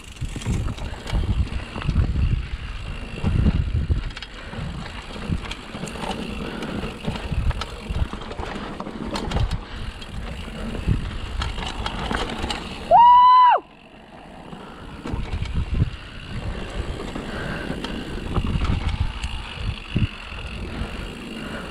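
Mountain bike being ridden down a rough bike-park trail: a continuous rumble of tyres over the ground with many uneven knocks and rattles. About thirteen seconds in, a loud high squeal cuts through for under a second.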